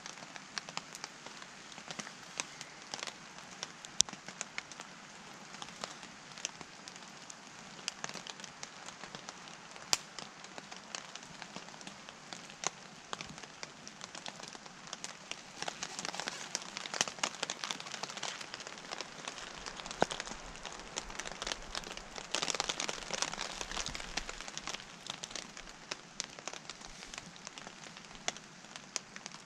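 Small wood fire crackling, with many sharp pops over a steady hiss that thickens for a few seconds at a time in the second half.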